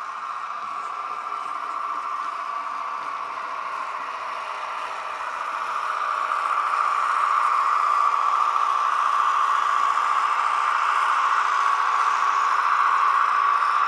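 H0-scale model of an SNCV ART300 tram running on its track with a steady whirring running noise, which grows louder about six seconds in as the tram comes close.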